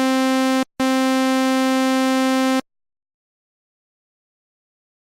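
Synthesizer holding one buzzy note at a steady pitch, broken by a short gap under a second in and cut off about two and a half seconds in.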